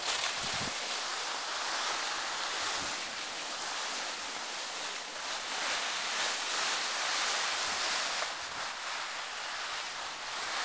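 Skis sliding over packed snow, a steady hiss, with wind buffeting the microphone in brief low gusts near the start.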